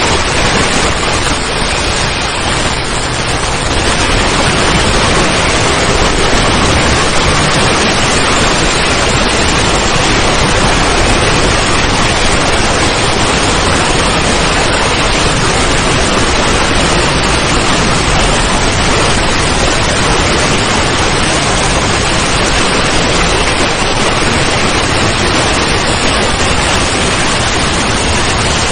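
A loud, steady hiss of noise like static, with no tone, rhythm or voice in it.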